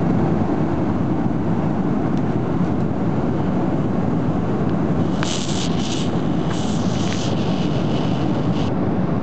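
Steady low rumble of an airliner cabin in flight: jet engine and airflow noise. From about five seconds in, short bursts of high hiss come and go for a few seconds.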